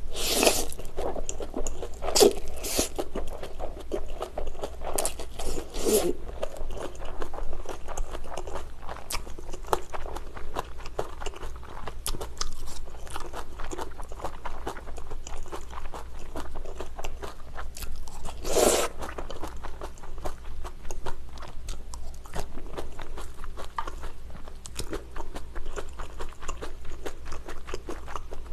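Close-miked eating of pad thai: wet chewing of rice noodles and their toppings, with crunchy bites and many small mouth clicks. A louder slurp of noodles comes at the start, and there are further louder bursts a few seconds in and about two-thirds through.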